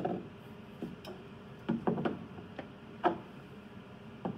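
A cordless drill with a step bit stops right at the start. Then come about six scattered light clicks and knocks as the drill and bit are handled at the freshly drilled hole in a plastic cistern.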